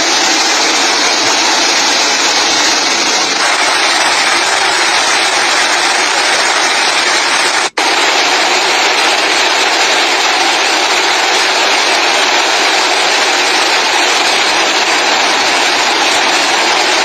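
Loud, steady rush of flood water, cutting out for an instant about eight seconds in.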